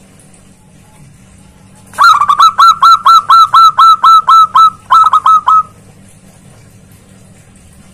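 Zebra dove (perkutut) calling loudly: a fast run of about sixteen short, sharp, hooked notes, roughly four or five a second, with one brief break before it stops.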